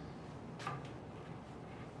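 A single faint tick about two thirds of a second in as a spinning bicycle rim brushes the truing stand's feeler gauge at an out-of-true spot, part of a once-per-turn ticking over a low steady hum.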